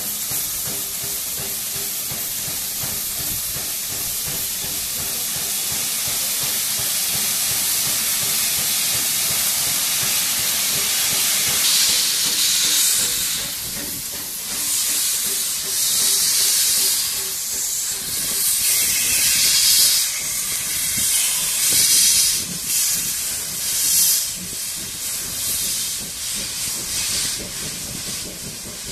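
USATC S160 2-8-0 steam locomotive hissing steam as it moves past, a steady hiss at first that grows louder and surges unevenly from about twelve seconds in.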